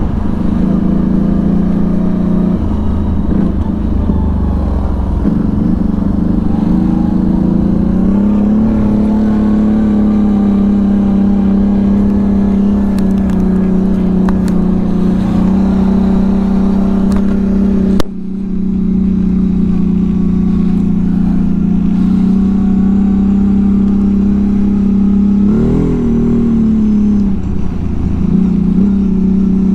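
V-twin ATV engine running steadily under way, its note shifting up and down a little a few times. A sharp click about 18 seconds in, where the sound changes abruptly.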